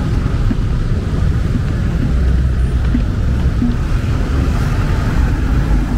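City street traffic: motor vehicle engines running close by, a steady low rumble.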